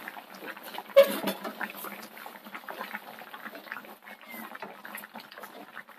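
Fish curry in ground-coconut gravy bubbling in an open earthen clay pot: a thick, continuous gurgling and popping. A brief louder sound comes about a second in.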